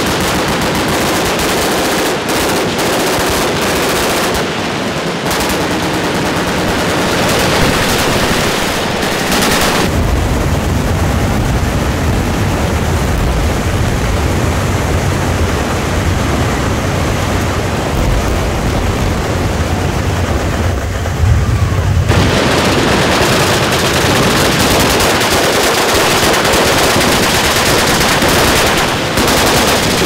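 Massed automatic gunfire from many machine guns firing at once along a firing line, a continuous dense rattle with no pauses. For about twelve seconds in the middle the sound turns deeper and duller.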